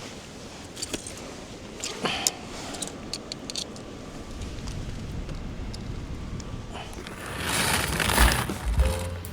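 Light clicks and scrapes of camp gear being handled, then about seven and a half seconds in a rattling rush lasting about a second, green coffee beans being poured out for charcoal roasting.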